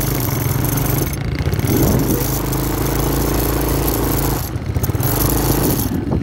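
Quad bike (ATV) engine running while riding over sand dunes, with a constant rushing noise over it. The engine note eases off briefly about a second in and again past four seconds, then picks up.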